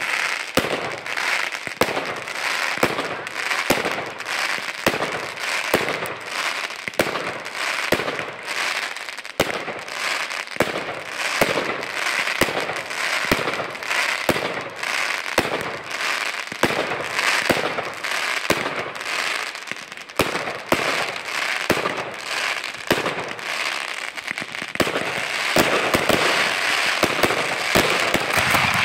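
Fireworks display going off without a break: dense crackling with a steady run of sharp bangs, the crackle thickening near the end before it cuts off.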